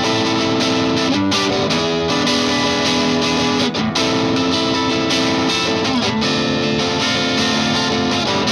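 Fender Custom Shop '57 Stratocaster played through an MXR Duke of Tone pedal in its distortion mode, into a Vox AC15 on its clean channel: distorted held chords that change every second or two.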